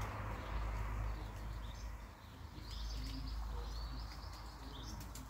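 Small songbirds chirping in short, repeated calls, over a steady low background rumble.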